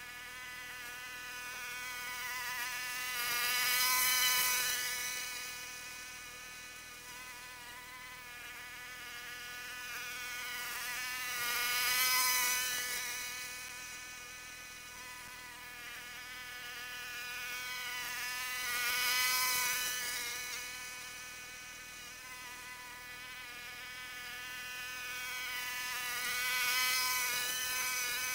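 Walk-behind lawn mower running with a steady buzz at a constant engine speed. Its sound swells and fades four times, about every seven or eight seconds, as it passes to and fro.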